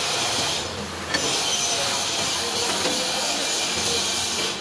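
Stick (shielded metal arc) welding arc crackling and hissing steadily as a bead is run. It drops away briefly about a second in, then picks up again with a sharp click.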